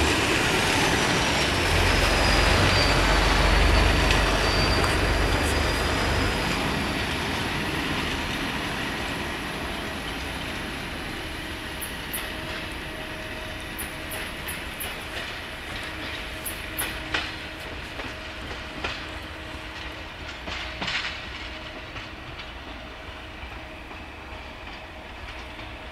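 Diesel passenger railcar train pulling away. Its low engine rumble and a high whine falling in pitch fade over the first several seconds, then come faint clicks of its wheels over rail joints as it recedes.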